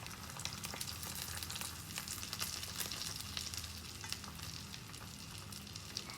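Eggs and sausage frying in butter in a pan: a steady sizzle with many small crackling pops of spattering fat.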